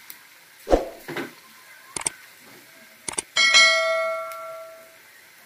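Subscribe-button overlay sound effect: a thump, sharp mouse clicks, then a bell ding that rings out and fades over about a second and a half. Oil frying faintly underneath.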